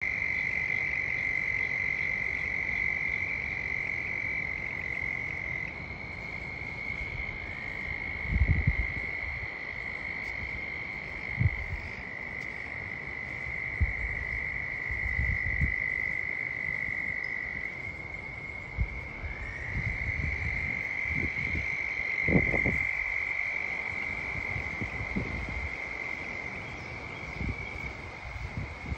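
A chorus of frogs trilling continuously on one high, steady pitch, several callers overlapping and taking over from one another. A few low thuds stand out now and then.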